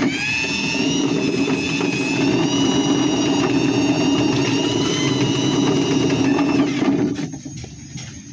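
Electric drill motor running, its whine rising as it spins up at the start, holding steady, then stopping about seven seconds in. It is mixing polyester resin for fiberglass work.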